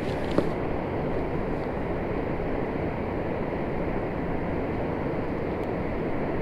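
Steady rushing of turbulent dam outflow water around a small boat, with a single short knock about half a second in.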